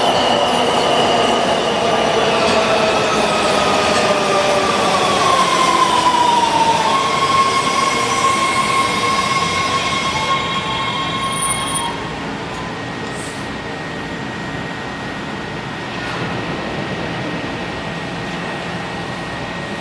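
Washington Metro train braking into an underground station over rumbling wheels and rails. A whine falls in pitch for the first third as it slows, then holds as a steady tone. About two-thirds through, the sound drops to a quieter rumble as the train comes to a stop.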